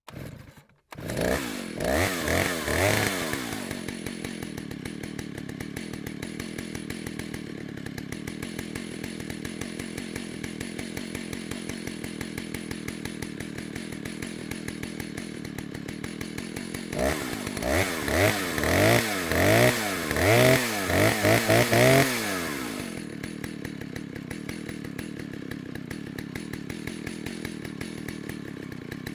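Chainsaw starting up about a second in and revving briefly, then idling steadily with a fast pulsing beat. Near the middle it is given a rapid series of throttle blips, each rising and falling in pitch, before it drops back to idle.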